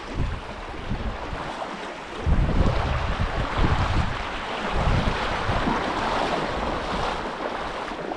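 Rushing water of a flooded river, an even rushing that grows louder about two seconds in, with wind gusts buffeting the microphone.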